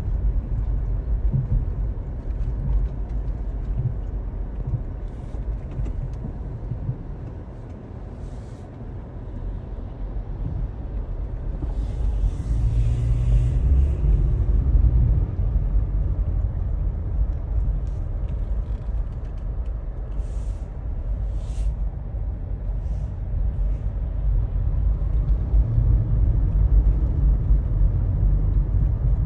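Steady low rumble of a motor vehicle running. A brief hiss comes about twelve seconds in.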